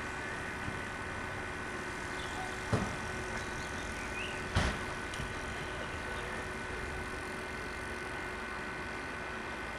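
Steady street traffic noise with two sharp knocks, a little under two seconds apart.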